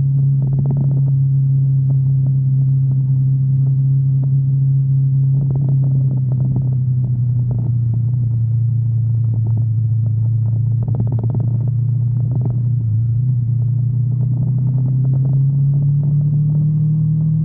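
Sport bike's engine running at a steady cruising speed, its pitch sagging slightly through the middle and rising a little near the end.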